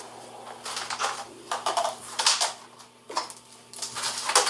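A cell phone being smashed with a hammer: about five sharp cracking hits, spread out and irregular, each a short clatter.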